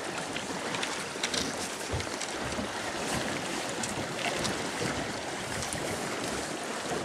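River water rushing and lapping around a small boat's hull, with scattered small splashes, as a salmon is held in a landing net over the side. Wind rumbles on the microphone.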